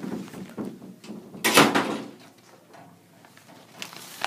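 An office door being pushed through and swinging closed, with one loud, short clatter about a second and a half in and a smaller knock near the end.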